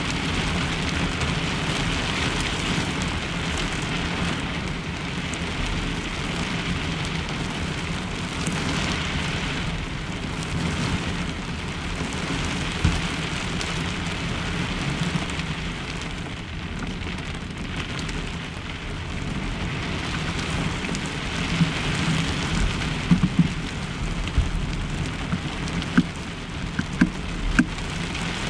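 Steady rain falling on a pickup truck's camper shell, heard from inside the shell. A few sharp clicks stand out near the end.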